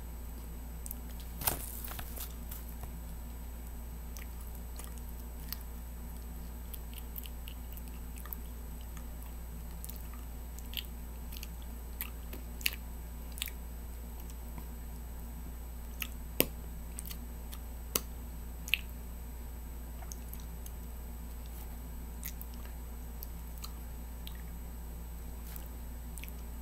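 A person chewing cotton candy close to the microphone: wet mouth and lip smacks, heard as irregular short sharp clicks, over a steady low electrical hum.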